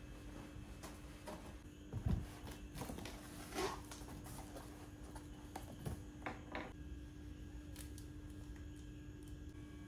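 Cardboard box set down with a thump on a wooden counter about two seconds in, then scraping and slicing as the box is cut open, followed by a soft knock and a few sharp clicks. A faint steady hum runs underneath.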